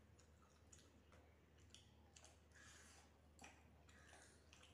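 Faint sounds of rice and curry being mixed by hand on metal plates: soft squishes and several light clicks of fingers against the plates, over a low steady hum.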